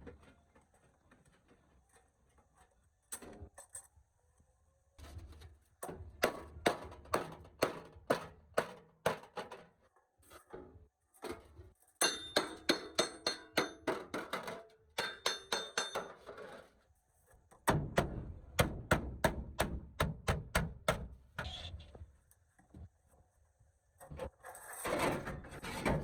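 Hammer blows on metal in several quick runs of about three to four strikes a second, some ringing, with a short scraping burst near the end.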